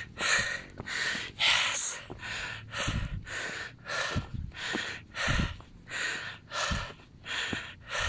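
A person breathing hard and fast, panting about twice a second, out of breath from climbing a steep trail on foot, with a few low thumps.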